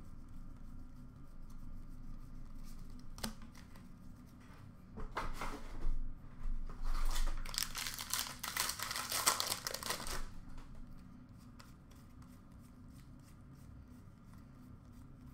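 Plastic wrapper of a hockey card pack tearing open and crinkling: a few short rips about five seconds in, then a louder stretch of crackling for about three seconds. Trading cards are then handled with faint light clicks.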